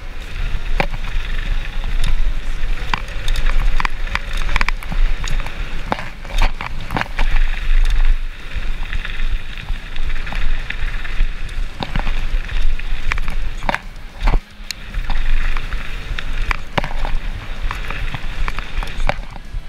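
Mountain bike riding down a dirt trail, heard close up: tyres crunching over gravel and roots, the chain and frame rattling with frequent sharp knocks. Under it runs a steady wind rumble on the microphone, with a brief lull a little past two-thirds of the way through.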